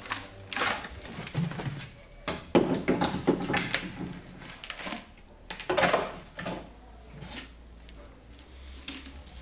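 Gloved hands working a flexible mould off a plaster cast of a head and handling the rigid mould shell: irregular knocks, scrapes and rustling, loudest in clusters a few seconds in and again about six seconds in.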